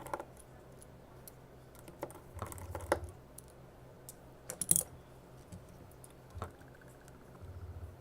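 Small sharp clicks and taps of tools and phone parts being handled during iPhone 6 screen reassembly, clustered in two short flurries a few seconds apart.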